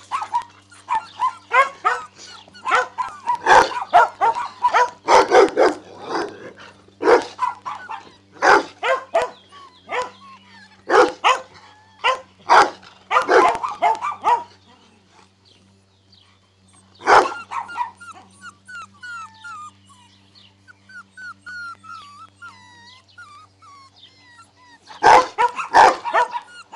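Several puppies barking and yelping in rapid, overlapping bursts for about fifteen seconds. A quieter stretch of high whining follows, then a fresh round of barks near the end. A steady low hum runs underneath.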